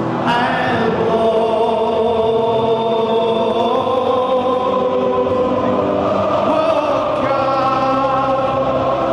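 Large football crowd singing together, many voices holding long notes.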